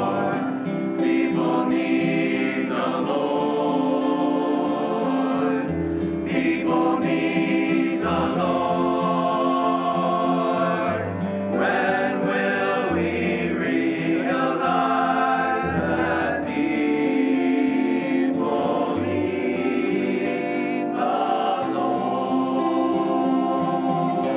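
Men's vocal ensemble singing a gospel song in harmony, in phrases of long held chords.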